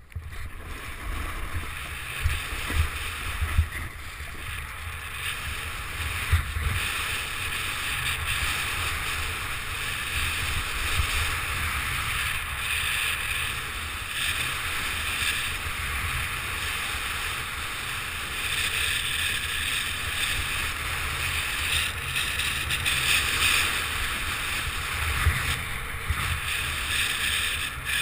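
Continuous rush of wind buffeting the microphone of a helmet-mounted camera, with the hiss of skis or a snowboard sliding and scraping over packed snow during a run down a ski slope.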